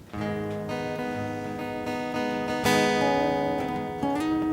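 A live blues band's instrumental intro: strummed guitar chords ringing out, with a fresh, louder strum about two and a half seconds in and a chord change near the end.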